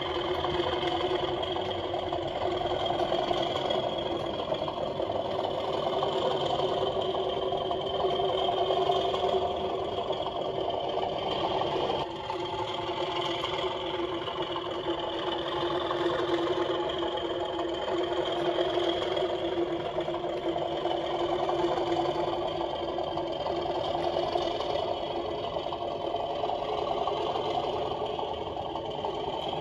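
DCC sound decoder in an OO gauge model Class 37 diesel locomotive playing a steady diesel engine sound through its small loudspeaker as the model hauls a freight train, with a brief drop-out about twelve seconds in.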